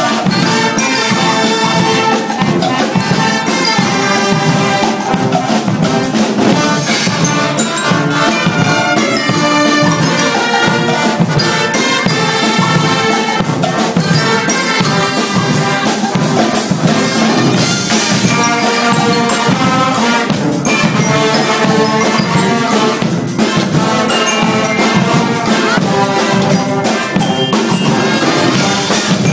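Guggenmusik carnival band playing loudly: trumpets, trombones and sousaphones over a steady beat of drums and cymbals.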